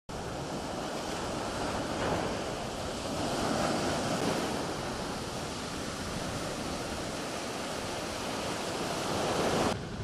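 Mediterranean surf breaking on a sandy beach: a steady wash of waves that swells now and then, with wind on the microphone. It cuts off suddenly just before the end.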